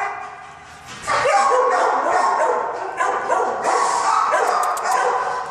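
Shelter dog barking and yipping with whines mixed in, going almost without a break from about a second in.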